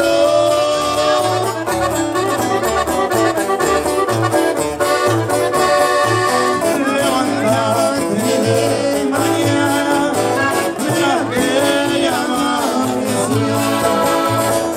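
Live band playing Latin music led by accordion, with electric guitar, a steady bass beat and a voice singing in Spanish.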